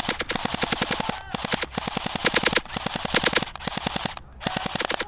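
Airsoft guns firing on full auto: about six bursts of rapid sharp cracks, roughly a dozen shots a second, with short breaks between them.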